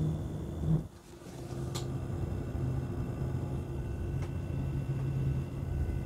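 PC case fans (the case's bundled CiT Infinity Turbo Ring fans) running at 50% speed, picked up with the microphone held close: a steady low hum with a faint high whine, very quiet.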